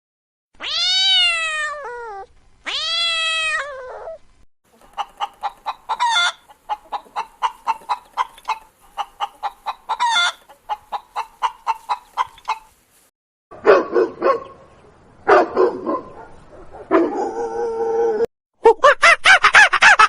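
A series of animal calls, one kind after another: first two long calls that rise and then fall in pitch, then several seconds of quick repeated calls at about four to five a second, then rougher, lower calls, and a loud run of rapid calls near the end.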